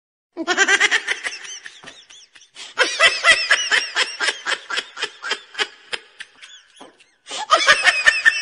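High-pitched human giggling, a quick run of 'ha' sounds at about four a second. It comes in three runs with short breaks about two seconds in and just before seven seconds.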